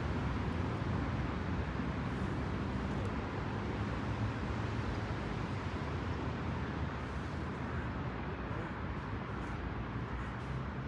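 Steady low background rumble with no distinct events, the sort of noise heard from distant traffic outdoors.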